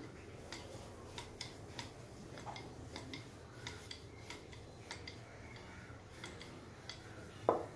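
Wooden rolling pin rolling out chapati dough on a floured countertop: light, irregular clicks and rubbing as the pin works back and forth, with one louder knock near the end.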